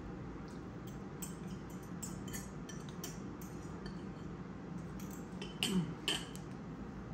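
Metal fork clinking and scraping against a ceramic bowl while eating, in scattered light clicks, with a brief louder sound about six seconds in.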